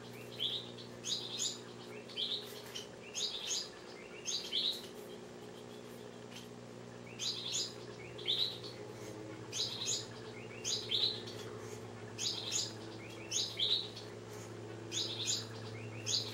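A small bird chirping over and over in quick runs of two or three chirps, about once a second, with a pause of a couple of seconds midway, over a steady low hum.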